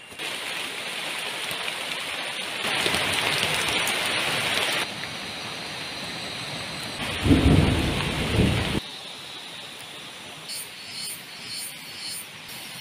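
Heavy rain falling, its level jumping abruptly several times, with a loud low rumble of thunder about seven seconds in, the loudest part. After the thunder the rain is quieter.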